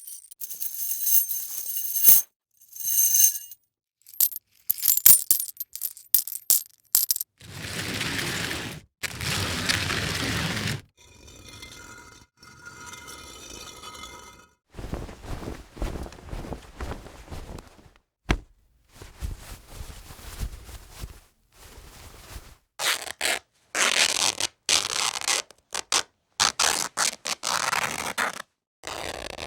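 A run of short, unrelated foley sound effects with gaps between them: metallic ringing and jingling near the start, then clicks, scrapes and rattles.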